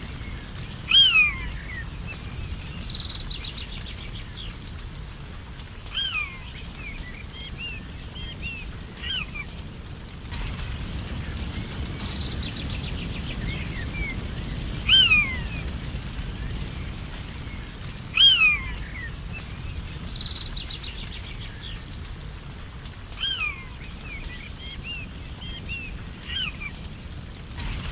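Birds calling in a forest: a loud whistled note falling in pitch recurs every few seconds, followed by softer short chattering notes, with a faint rapid trill now and then. A steady low background noise runs underneath.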